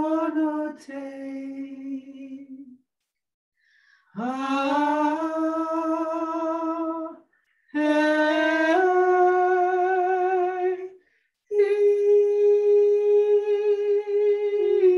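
Wordless singing: long held vowel tones, about four notes with short pauses for breath between them. One note slides up into pitch as it begins, and the last is held for several seconds.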